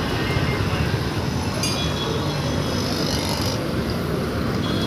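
Busy road traffic: a steady din of passing vehicle engines, auto-rickshaws and cars among them. A high-pitched tone joins for about two seconds near the middle.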